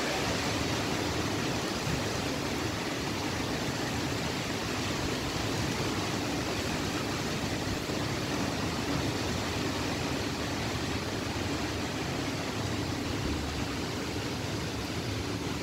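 Strong dust-storm wind blowing steadily through trees and palm fronds: a constant rushing noise that neither builds nor drops.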